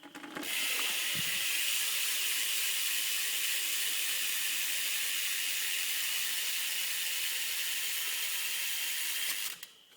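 Primo Remix rear cassette hub of a BMX bike coasting as the rear wheel is spun, its pawls ratcheting so fast they blend into a steady buzz. It starts about half a second in and stops abruptly near the end.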